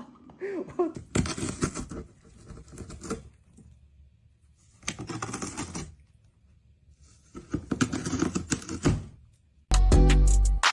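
Several bursts of rapid clicking and clattering, each a second or two long, with short quiet gaps between them. Loud music cuts in near the end.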